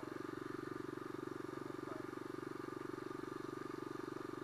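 Single-cylinder supermoto motorcycle engine running at steady revs while cruising, an even pulsing drone that holds unchanged.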